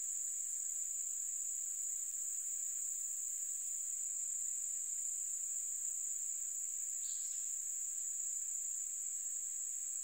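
Crickets chirping in one continuous, steady high-pitched trill, with a brief faint call about seven seconds in.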